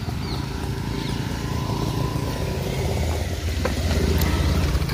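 Small-engined street traffic of motorcycles and auto-rickshaws, with an engine running close by in a steady low rumble that gets louder about three and a half seconds in.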